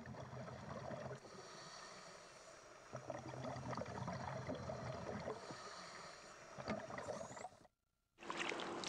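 Scuba diver breathing underwater through a regulator, with two long bursts of exhaled bubbles rumbling. Just before the end the sound cuts out briefly and gives way to water splashing at the surface.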